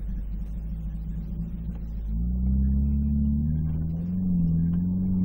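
Nissan Terrano SUV engine heard from inside the cabin while driving over sand. From about two seconds in it pulls harder and louder as the SUV climbs a steep sand hill, holding a steady note.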